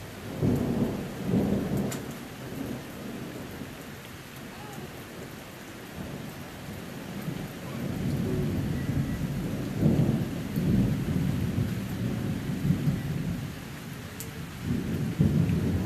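Thunder rumbling in low, rolling peals: one starting about half a second in, a long rumble building through the middle, and another near the end.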